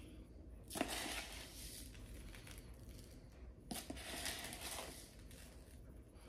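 A spoon scoops a dry salt-and-sugar spice cure out of a plastic container and scatters it over a raw salmon fillet. There are two grainy, hissing spells of scraping and sprinkling, about a second in and about four seconds in.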